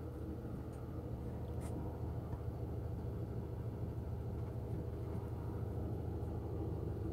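Steady low drone of an idling engine, with a faint click about a second and a half in.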